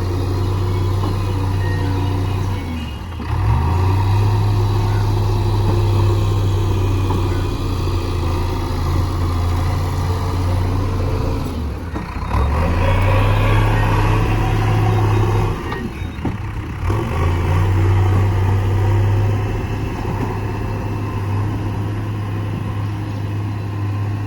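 Heavy diesel machinery engine working steadily under load, its low drone dipping briefly about three, twelve and sixteen seconds in and pulling harder and louder between the last two dips.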